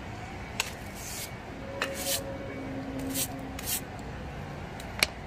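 Brush strokes swishing across a wet floor, about six short sweeps, with steady rain behind and a sharp knock near the end.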